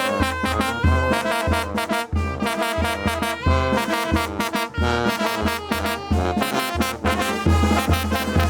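A Mexican brass band playing a chilena: trumpets and trombones carry the melody over a regular bass line and percussion.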